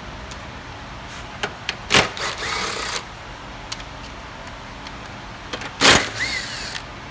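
Two sharp clunks about four seconds apart, each followed by about a second of plastic scraping with a short squeak, as wiring harness connectors are worked loose from a Chrysler Sebring's engine computer.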